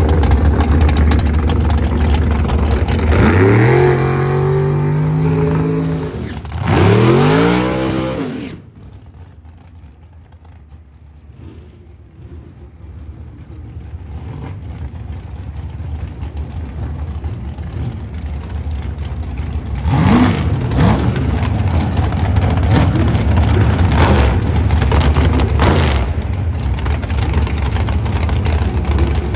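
Drag racing V8 dragster engines at the starting line. One engine runs loud, revs up about three seconds in and holds high, then revs again near seven seconds, and its sound falls away suddenly at about eight and a half seconds. After a quieter stretch, another dragster's V8 comes close, revs briefly about twenty seconds in and runs steadily at idle.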